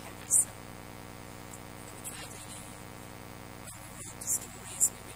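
Steady electrical hum with three short, sharp hissing bursts: one about half a second in and two more after four seconds.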